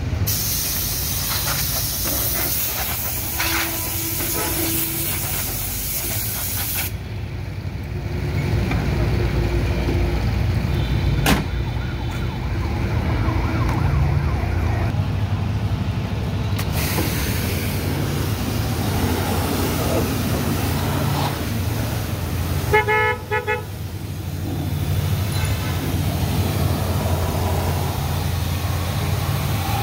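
Car-wash hose spraying a jet of water onto a car, a steady hiss that stops for several seconds midway and then resumes. A vehicle horn toots briefly about three quarters of the way through, over a low rumble of traffic.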